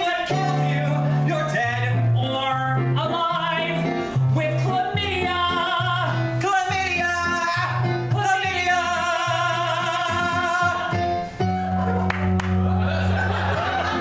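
Male voices singing a show tune over keyboard and electric guitar accompaniment, with a long held note about two-thirds of the way through.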